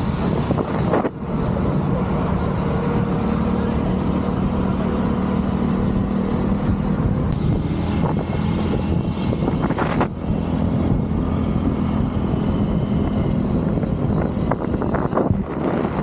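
Motorcycle engine running steadily at riding speed, heard from on board the bike, with wind rushing over the microphone. The sound dips briefly about a second in and again about ten seconds in.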